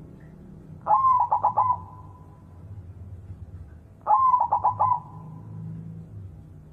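White zebra dove (perkutut) cooing: two song phrases about three seconds apart, each a rising first note followed by a quick run of short clipped notes and a trailing held tone.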